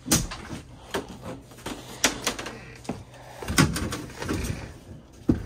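Irregular knocks and clunks of the old air handler's cabinet and coil bumping against the wooden framing as the unit is worked loose.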